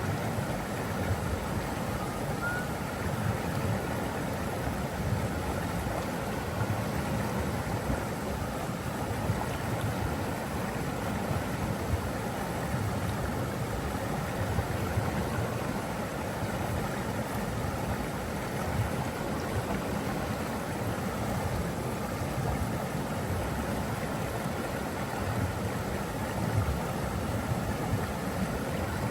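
Steady rush of flowing water, an even, unbroken sound with no change in level.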